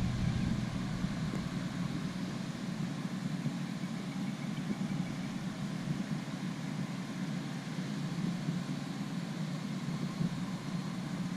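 A steady engine hum at idle-like, even speed, without changes in pitch.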